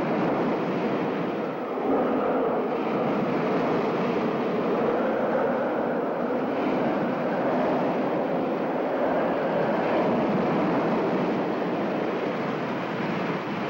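Hurricane-force wind roaring: a steady, even rushing noise with no let-up.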